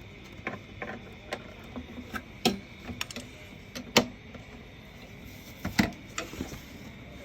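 Scattered sharp clicks and clinks of hand tools and metal parts as a paper shredder is taken apart, coming at irregular intervals; the loudest come about two and a half, four and six seconds in.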